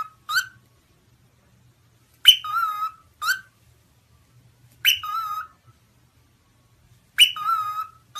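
Cockatiel whistling a short phrase three times, about every two and a half seconds: a sharp high start, a wavering lower note, then a brief rising chirp.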